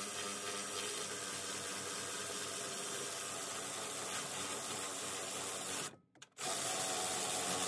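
Cordless brushless power ratchet running steadily as it spins a bolt out of the front tension arm mount, with a brief stop about six seconds in before it runs again.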